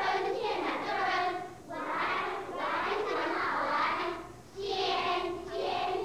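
A group of children's voices in unison, going in phrases with short breaks between them.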